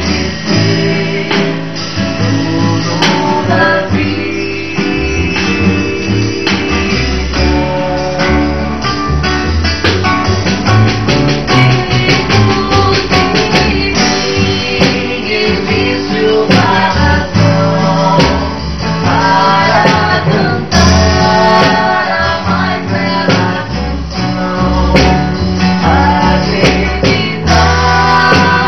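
A band playing a song in rehearsal, with guitar and a steady bass line.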